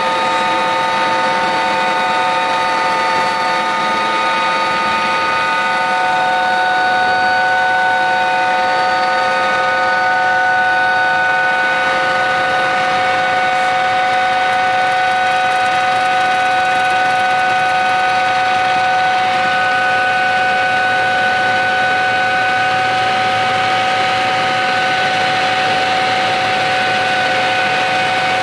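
Helicopter turbine engines and rotor transmission heard from inside the passenger cabin during takeoff and climb-out: a loud, steady whine of several pitches over a rushing noise.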